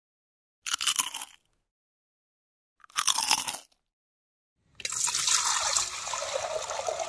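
Two short crunches about two seconds apart, then, from about five seconds in, water poured from a bucket splashing steadily into an aluminium bowl.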